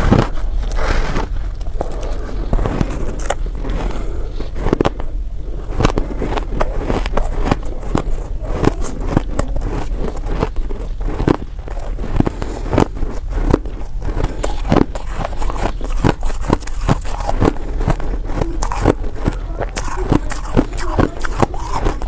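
Reshaped shaved ice being bitten and chewed, many crisp crunches, several a second and irregular, over a steady low hum.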